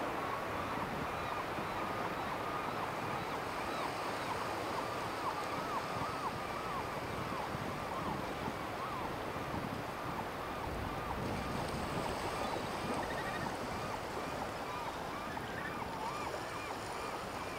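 Steady rush of wind on the microphone, with a dense run of short, repeated rising-and-falling chirping calls over it.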